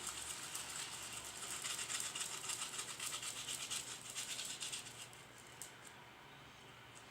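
Slime being kneaded and squeezed by hand: a dense run of fine, sticky crackling clicks that thins out about five seconds in.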